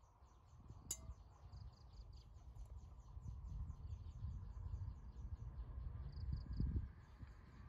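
High, even insect chirping, about five chirps a second, over a low rumbling noise that is the loudest thing throughout. A single sharp click about a second in.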